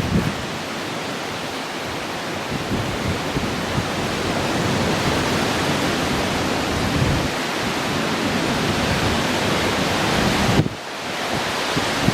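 Typhoon wind and rain making a steady rushing noise, with wind buffeting the microphone. It swells slightly through the middle and drops away sharply for a moment near the end before picking up again.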